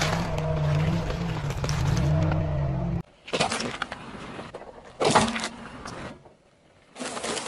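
A car engine runs low and steady as its tyre rolls onto a pile of eggs and crunches them. Then come three sharp squelching bursts about two seconds apart, as a tyre crushes plastic cups of yogurt-like food and sprays their contents out.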